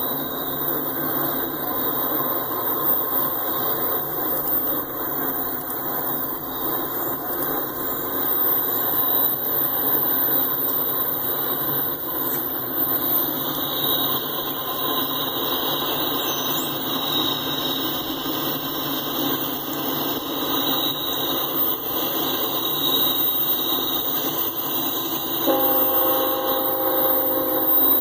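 Approaching diesel-hauled freight train led by a BNSF locomotive: steady rolling noise with a high-pitched squeal, typical of wheel flanges on curved track, that grows stronger from about halfway. A locomotive air horn starts suddenly near the end.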